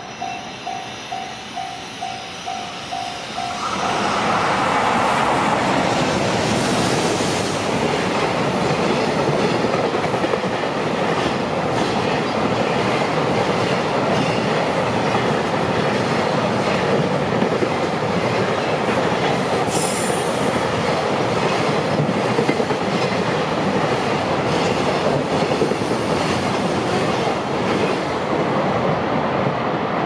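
Level-crossing alarm bell dinging at about two strikes a second, then, about four seconds in, a JR Freight container train hauled by an EF210 electric locomotive passes at speed, its wagons clattering over the rail joints. A brief high wheel squeal comes about two-thirds of the way through.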